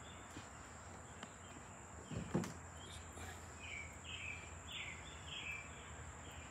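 Outdoor insect chorus, crickets giving a steady high drone, with a bird calling a string of short chirps in the second half. A brief thump about two seconds in.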